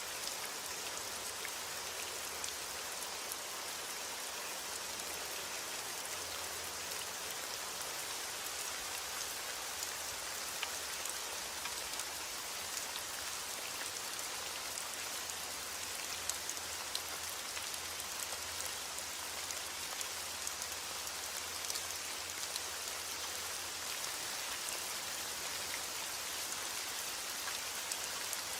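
Steady heavy rain falling, a dense even hiss with many small droplet ticks on a hard surface.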